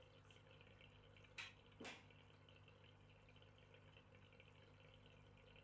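Near silence: a steady low room hum, with two short clicks about a second and a half in, half a second apart.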